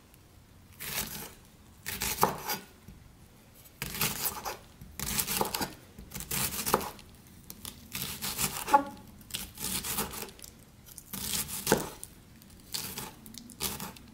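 Chef's knife chopping onion on a wooden cutting board, in about ten quick runs of cuts with short pauses between them.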